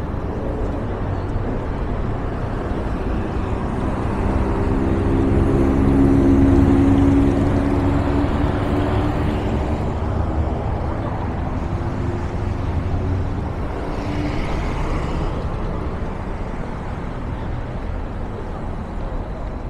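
City street traffic with a steady low rumble; a motor vehicle passes close by, its engine swelling from about four seconds in, loudest around six to seven seconds, then fading away.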